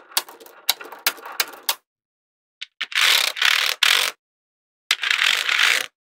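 Small magnet balls clicking sharply against each other as they are snapped onto a block of balls, a quick run of separate clicks. Then two bursts of rapid clattering, about a second each, as many balls snap into place at once.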